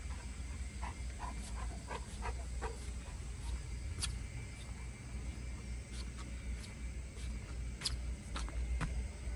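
A string of short, high animal calls, about four a second for two seconds, followed by a few sharp clicks over a low, steady rumble.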